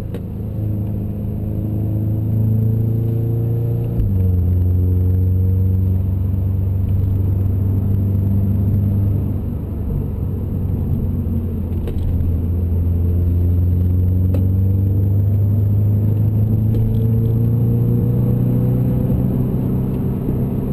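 Audi S3's turbocharged four-cylinder engine heard from inside the cabin, pulling through the revs on a winding road. The engine note climbs, then drops suddenly about four seconds in as the car shifts up. It dips briefly near the middle and climbs slowly again toward the end.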